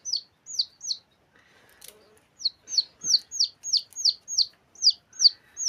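Rapid series of short, high bird chirps, each sweeping down in pitch, about three a second, with a pause of about a second and a half after the first second.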